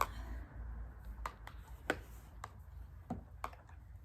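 Handling noise: a few light, irregular clicks and taps as a small plastic ventriloquist figure and its packaging are handled, over a faint low rumble.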